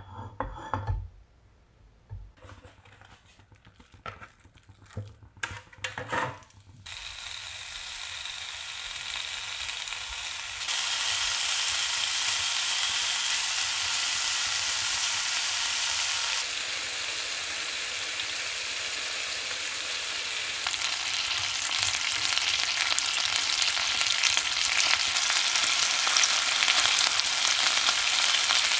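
A few knocks in the first several seconds, then pieces of chicken thigh sizzling as they fry in a non-stick frying pan. The sizzle grows louder about ten seconds in and then stays steady.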